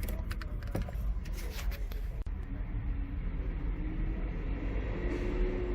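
A quick run of small clicks and knocks in the first two seconds, then a steady low rumble with faint high tones in the second half.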